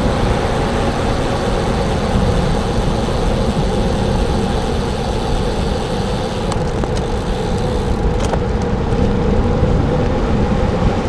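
Steady rush of wind and tyre noise from a bicycle riding at about 20 miles per hour on a wet road in the rain, with car traffic around it. A couple of short clicks come about six and a half and eight seconds in.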